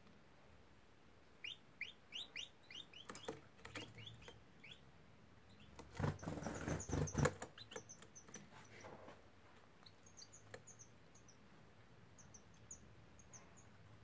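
Canaries calling: a quick run of about ten short chirps that fall in pitch, later a scatter of faint, high chips. About six seconds in, a louder close burst of wing flutter and rustling.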